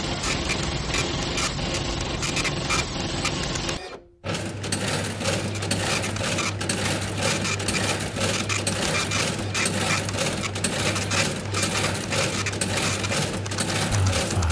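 Vintage computer machinery running. A steady machine-room hum and clatter cuts out about four seconds in, then gives way to a rapid, even mechanical clattering over a steady low hum from electromechanical computer peripherals.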